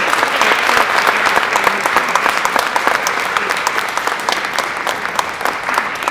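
Audience applauding in a concert hall: many hands clapping in a dense, steady patter.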